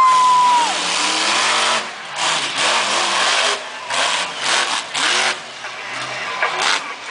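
Monster truck engine revving hard in repeated bursts, the throttle easing off briefly every second or two. A loud whistle sweeps up and holds for about a second at the start.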